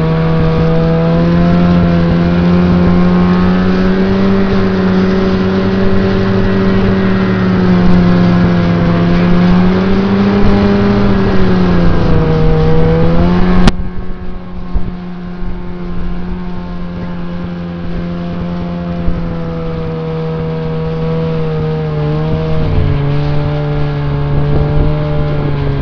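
Snowmobile engine running steadily while towing a sled, its pitch wandering a little with the throttle. About fourteen seconds in there is a sharp click, and the engine carries on quieter.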